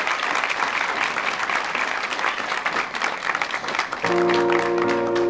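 Audience applauding and cheering. About four seconds in, the applause gives way to music with held chords as the presentation's soundtrack begins.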